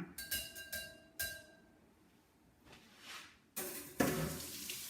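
A few ringing clinks of kitchen dishware being handled, then about four seconds in a kitchen tap is turned on and water runs steadily into the sink.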